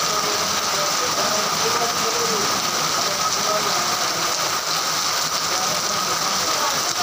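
Heavy rain pouring down in a steady, unbroken hiss, with rainwater streaming off the roof edges.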